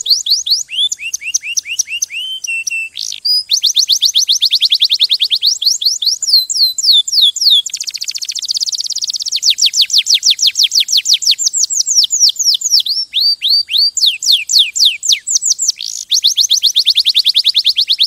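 Domestic canary singing: a long song of rapid trills, each a run of quick falling whistled notes, switching to a new trill every second or two, with a slower, lower run of notes about a second in.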